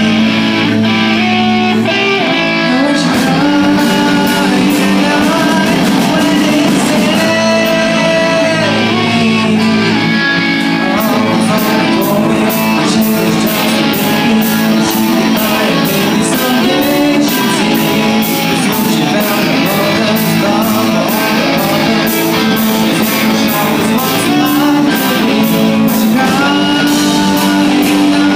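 Live rock band playing: electric guitars, drums and lead vocals. A steady run of cymbal strokes comes in about eleven seconds in.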